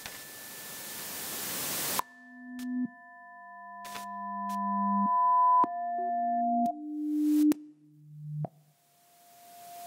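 Electronic sounds: a hiss that swells and cuts off abruptly about two seconds in, then pure electronic tones at several pitches, high and low and overlapping, each growing louder and stopping suddenly with a click. Near the end the hiss swells up again.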